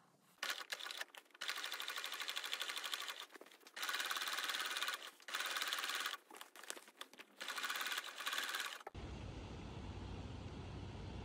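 Electric sewing machine stitching in fast runs with short pauses, topstitching through the layers along the top edge of a tote bag. Near the end it stops abruptly, and a steady low rumble of outdoor background noise takes over.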